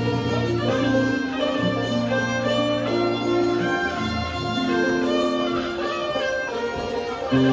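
Live Thai ensemble music, with khim and electronic keyboard on stage: a melody of long held, wavering notes over a slow line of held bass notes.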